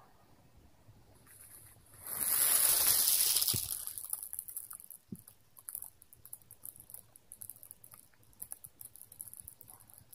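Handling noise from a small handheld device: a rustling swell lasting about two seconds, then a run of faint, irregular, very high ticks and crackles, several a second.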